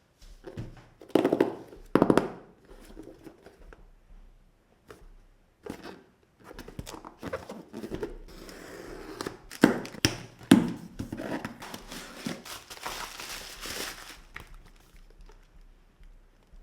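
Cardboard box and packaging being handled and opened by hand: knocks and thuds, the loudest a second or two in and again around ten seconds, with rustling and crinkling of packaging between.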